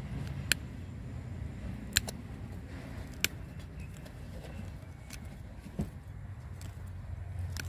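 Sharp snips of a hand pruning tool cutting fine roots at the base of a tree: three clicks in the first few seconds and one more near the end, with a duller knock between. A low steady rumble runs underneath.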